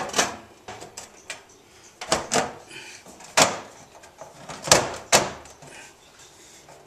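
Sheet-metal ballast cover of a fluorescent light fixture being pressed and snapped into place by hand: a string of separate sharp clicks and knocks, the loudest a little under five seconds in.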